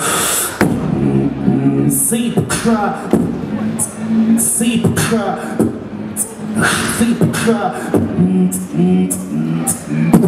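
Solo vocal beatboxing into a handheld microphone: a low hummed bass line under sharp hissing hi-hat and snare-like strikes and clicks, in a quick, uneven rhythm.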